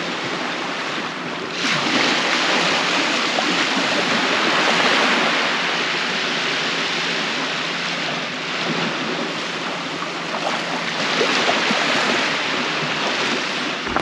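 Small waves washing onto a sandy beach: a continuous rushing surf that swells up just under two seconds in and keeps rising and falling.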